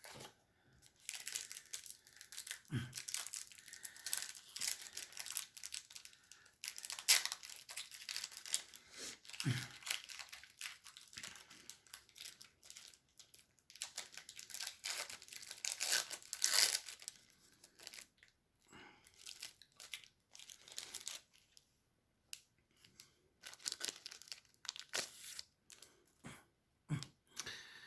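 Trading card pack wrappers being torn open and crinkled, in stretches of crackly tearing and rustling broken by short pauses, with a few soft thumps.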